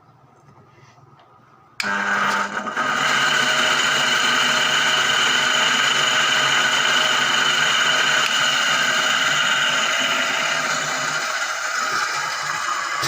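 Washing machine electric motor switched on about two seconds in and running steadily with a loud, rough whine, the noise that is put down to a worn 6202 ball bearing.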